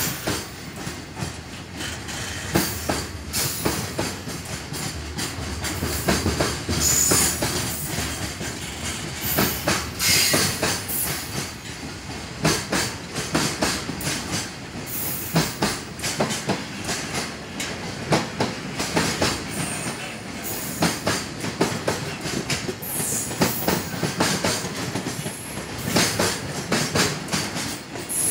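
JR Freight container wagons rolling past at speed, their wheels clacking over rail joints in a continuous rapid rhythm over a rumbling roar, with a few brief high squeals from the wheels.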